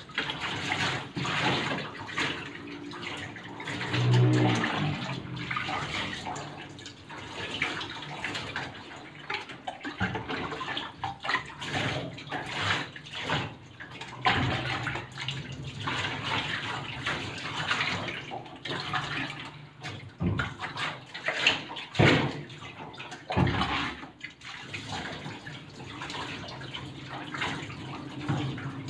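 Running water splashing unevenly during a dog's bath, in short irregular gushes that come and go.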